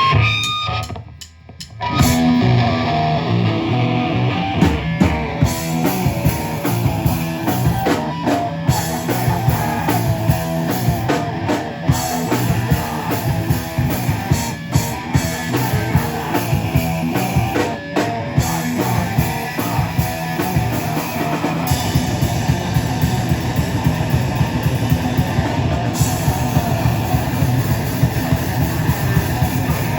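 Live rock band playing loud, with guitars and a drum kit; after a brief dip, the full band comes in about two seconds in and plays fast and dense.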